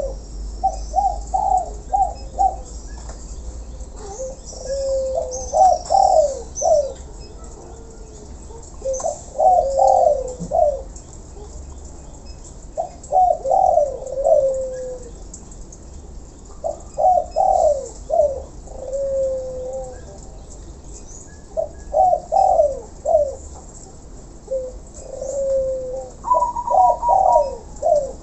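Caged doves cooing in repeated phrases of short rising notes, a new phrase about every four seconds, with faint high chirps of small birds behind.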